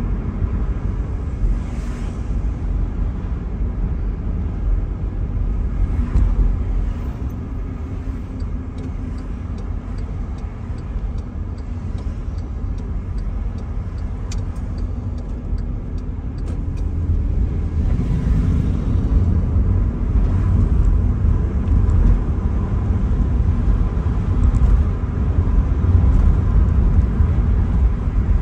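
Car cabin noise while driving: a steady low rumble of engine and tyres on the road, growing louder about two-thirds of the way through. A few faint ticks sound in the middle.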